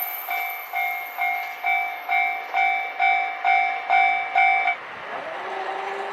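Railway level-crossing warning bell ringing in even electronic dings, about two a second, then cutting off suddenly near the end.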